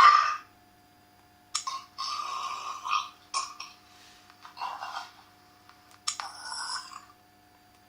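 Recorded burp sounds played one after another from a burping soundboard app: about six separate burps of different lengths, the longest about a second, with short pauses between them.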